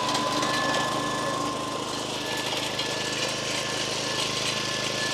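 Small gasoline-engine saw, freshly pull-started, running steadily at an even engine pitch.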